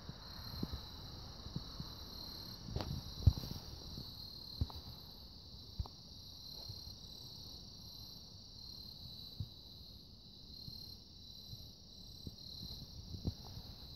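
Steady high-pitched insect chorus, pulsing evenly, with scattered soft knocks and thumps, the loudest about three seconds in.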